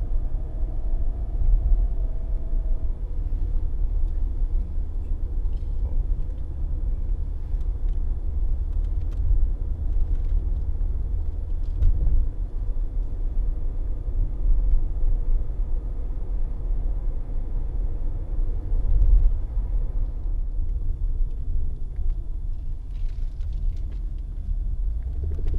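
Low, steady rumble of a Mercedes-Benz W124 300E-24 heard from inside the cabin while driving, with a few faint knocks among it. The car is being driven to find a knocking noise that the mechanic traces to the centre propeller shaft.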